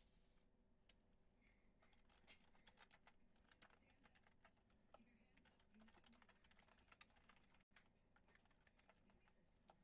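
Near silence with faint, irregular clicking of typing on a computer keyboard.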